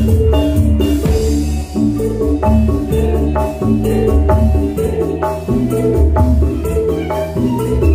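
Dangdut koplo band playing through a large PA, with kendang hand drums driving a fast beat over a heavy bass line and sustained pitched notes.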